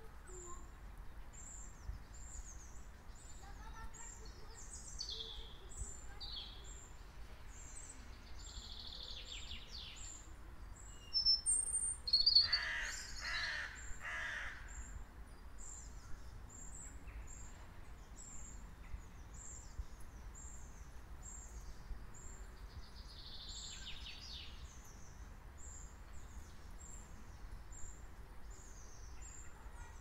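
Songbirds singing in trees, with a thin high note repeated about twice a second throughout and other song phrases coming and going. A little before the middle a louder call rings out about four times, over a low steady background rumble.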